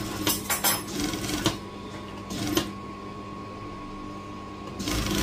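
Cotton blouse fabric rustling and crinkling as it is handled and smoothed on a sewing machine table, with a few short sharp handling noises and a louder rustle near the end, over a steady electric hum.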